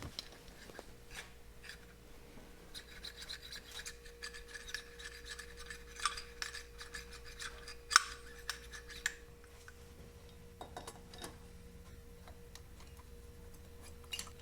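Polished throttle valves of pre-monoblock motorcycle carburetors being worked up and down in their bodies: metal sliding and rubbing, with small clicks and a sharper click about eight seconds in.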